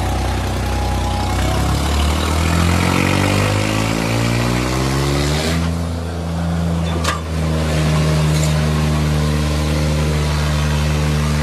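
Diesel engines of a Kubota MU5501 and a New Holland 3600 tractor revving up under full load while pulling against each other. The pitch climbs over the first few seconds, then holds at high revs. A single sharp knock comes about seven seconds in.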